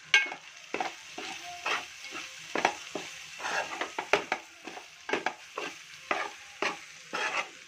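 Minced mutton frying in oil in a metal pot, sizzling, while a metal spoon stirs and scrapes it about twice a second.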